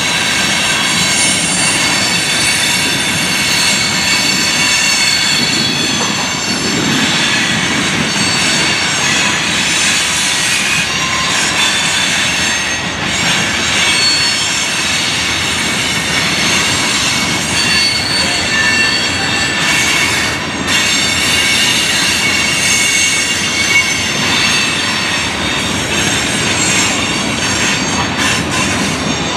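Freight cars (covered hoppers, then tank cars) rolling past, steel wheels squealing in several high steady tones over the rumble of wheels on the rails.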